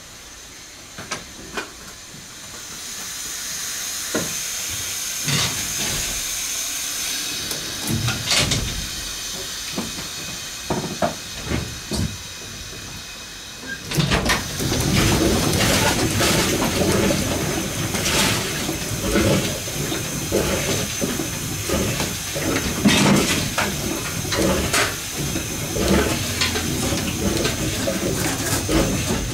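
Steam hissing as steam is let into a steam yacht's multi-cylinder reciprocating steam engine, with a few light clicks. About halfway through the engine starts running, a dense mechanical din of fast repeated knocks from its rods and bearings mixed with steam noise. This is the test run after shims were taken out of the low-pressure wrist pin bearing to cut bearing knock.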